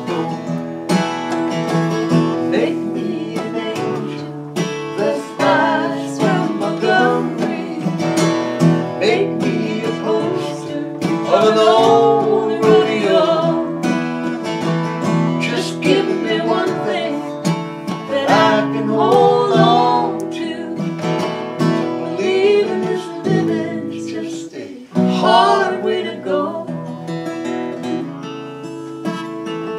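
Two acoustic guitars playing an instrumental break in a slow folk song: strummed chords with a wavering melody line over them. The last sung word of the verse fades out at the start.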